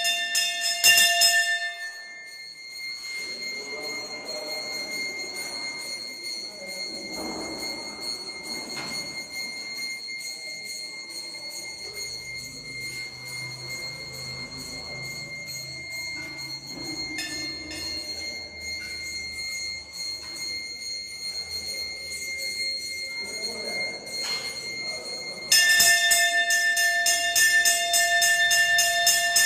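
Brass hand bell rung rapidly for about two seconds, then a long lull with faint low murmuring. It rings rapidly again for the last four seconds.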